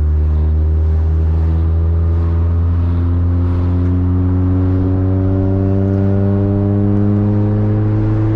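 Mini Cooper S's supercharged four-cylinder engine with a straight-piped exhaust, running under light throttle while driving. Its steady drone climbs slowly and evenly in pitch as the revs build, with no gear change.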